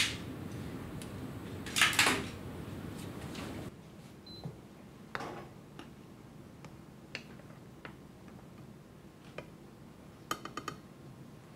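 Kitchen clatter: scattered knocks and clinks of utensils and dishes on a worktop, with a quick run of small clicks near the end. A steady background hum drops away a few seconds in.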